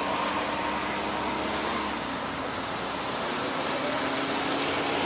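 Steady street traffic noise, an even hum of passing cars with no distinct events.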